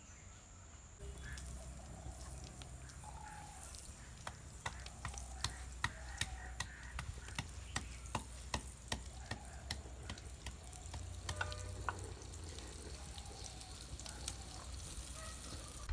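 Wooden pestle pounding in a small mortar: a run of sharp knocks, about two a second, over a faint steady background.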